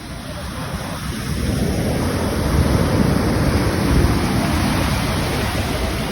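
Ocean surf: a wave breaks and washes in, the rushing noise swelling to its loudest about halfway through and then easing, over a deep low rumble.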